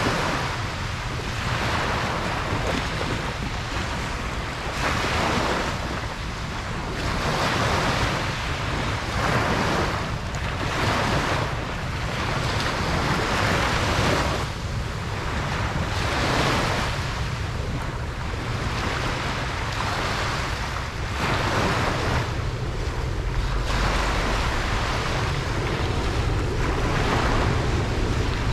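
Ocean waves breaking and washing up on a beach, a new surge of surf swelling every two to three seconds over a steady low rumble.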